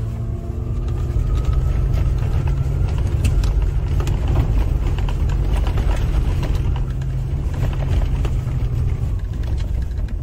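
4x4 SUV driving slowly through snow: a steady low engine and drivetrain rumble that builds over the first couple of seconds, with scattered knocks and crunches from tyres and suspension over the rough ground.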